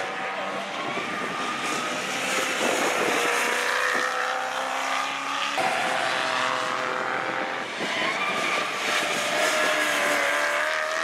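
Ford Falcon saloon race car's engine running hard through a corner, its pitch climbing and then stepping down sharply twice, about two and a half and five and a half seconds in.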